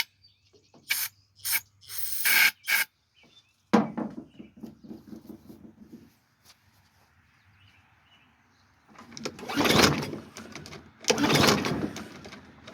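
Briggs & Stratton push-mower engine being pull-started: the recoil starter is yanked again and again, about every second and a half near the end, and the engine turns over without catching, for lack of fuel. A few short, sharp noises come first.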